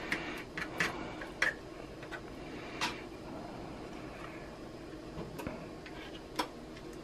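A fork spreading ricotta over lasagna sheets in a nonstick pan: soft scraping with a few light, irregular clicks of the metal fork against the pan and pasta, over a faint steady hum.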